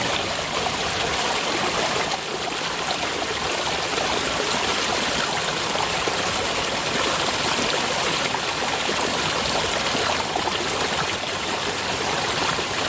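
Water flowing steadily in a small irrigation ditch, a continuous rushing and trickling.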